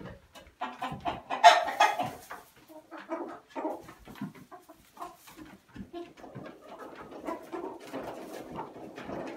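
Domestic chickens clucking and calling inside a wooden coop, a string of short calls with one louder call about a second and a half in.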